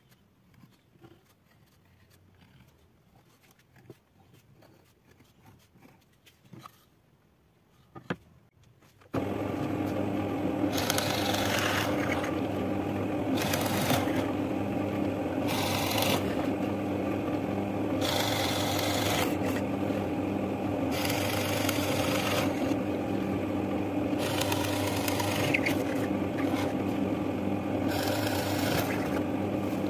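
Faint pencil strokes and small taps on a wooden board. About nine seconds in, a bench drill press is heard running steadily, its bit plunging again and again into the beech board to bore a grid of pockets, each cut a hiss of a second or two, about eight cuts in all.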